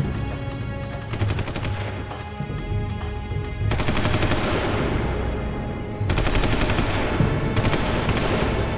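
Rapid machine-gun fire, a hail of bullets going on throughout, with louder bursts breaking in about four and six seconds in, over a dramatic music score.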